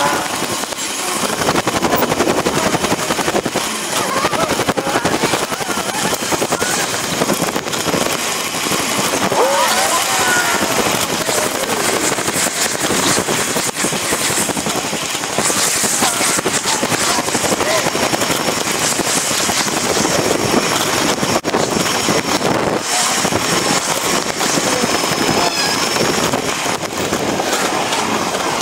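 Traffic and riding noise from a bicycle-mounted camera sped up eight times: a dense, high-pitched rushing clatter, with brief squeaky chirps of sped-up passing cars or voices around a third of the way in.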